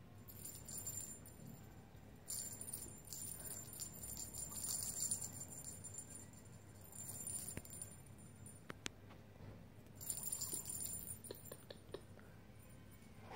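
A cat's string-and-wand toy jingling and rattling in bursts as the cat bats and grabs at it, with a few light clicks in between.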